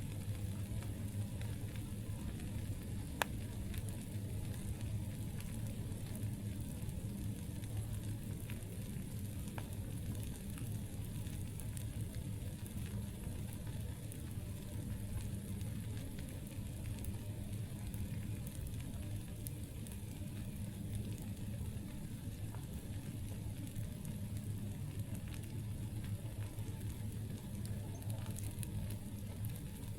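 Wood campfire burning, with a steady low rumble and scattered small crackles; one sharp pop about three seconds in is the loudest sound.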